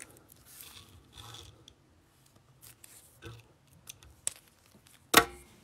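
Faint rustling, scraping and light clicks of small objects being handled, with one sharp click near the end.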